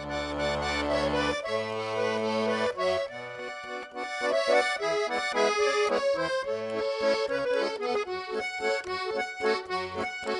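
Russian garmon playing the instrumental introduction to a romance: long held chords at first, then a melody over a regular bass-and-chord accompaniment.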